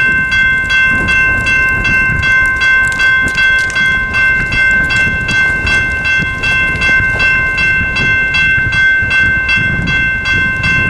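General Signals Type 2 electronic railroad-crossing bells ringing steadily at about three dings a second, sounding the crossing's warning that a train is approaching while the gates come down.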